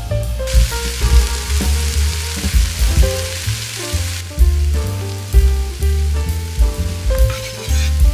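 Crumbled tofu and oatmeal sizzling in a frying pan, a steady hiss from about half a second in until about four seconds, with another short sizzle near the end, over background music with a bass line and piano.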